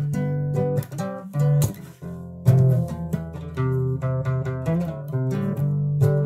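Acoustic guitar being played: a run of plucked notes and chords that change every half second or so, with a louder strummed chord about two and a half seconds in.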